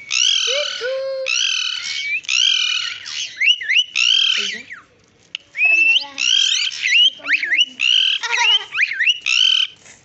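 Slaty-headed parakeet giving a rapid series of loud, high-pitched calls, each under a second and some with quick up-and-down pitch sweeps, with a short pause about halfway through.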